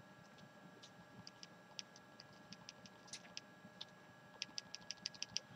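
Faint clicks of a TI-84 Plus graphing calculator's keys being pressed. They are scattered at first, then come in a quick run of about eight in a second near the end, as the trace cursor is stepped along the graph.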